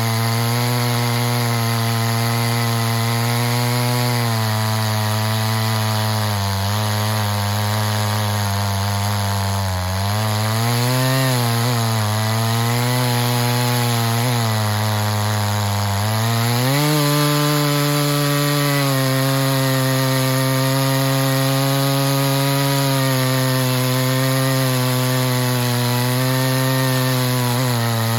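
Echo CS-620P two-stroke chainsaw with a modified muffler, running at full throttle under load as its 36-inch bar and ripping chain rip lengthwise through a log in an Alaskan chainsaw mill. The engine note sags and wavers between about six and sixteen seconds in as the cut loads it, then holds steady and slightly higher.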